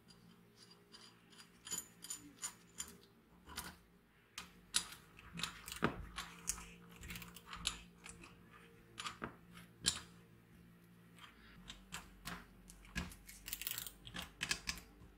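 Ratchet wrench clicking in short runs, with metal tools clinking on steel, as the pivot bolt of a corking machine's lever is tightened. The clicks come in irregular clusters with pauses between them.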